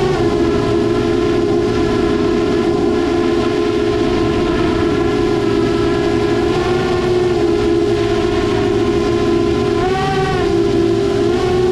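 FPV quadcopter's motors and propellers giving a steady whine while hovering, with the pitch dipping and wavering briefly about ten seconds in as the throttle changes.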